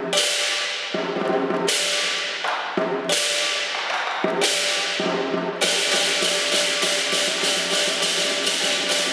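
Southern lion dance band of lion drum and clashing cymbals playing. Heavy drum strokes with cymbal crashes come about every second and a half at first; about six seconds in, the beat turns fast and steady, with the cymbals clashing about three times a second.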